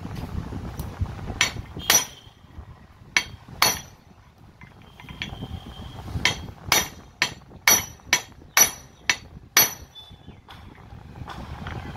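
Hand hammer striking the steel gear and shaft assembly of a 5 kg demolition hammer, knocking the shaft loose from the large gear. Sharp, ringing metal blows: four spaced ones, a short lull, then a quicker run of about eight, roughly two a second.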